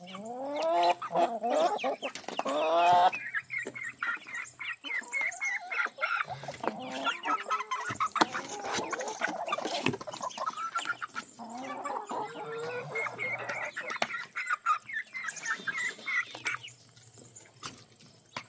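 A flock of backyard chickens clucking and calling, with the loudest, drawn-out calls in the first three seconds.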